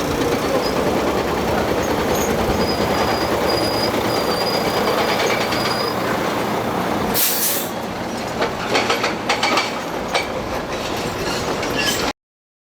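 Excavator working: heavy machinery noise with high-pitched metal squealing in the first half, then scattered clanks and knocks, cutting off suddenly near the end.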